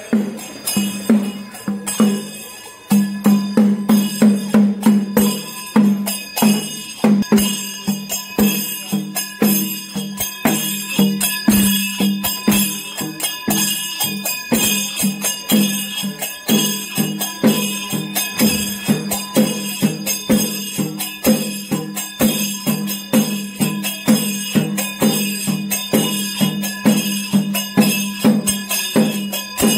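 Chenda melam: temple drums beaten in a quick, steady rhythm, with metal cymbals ringing throughout.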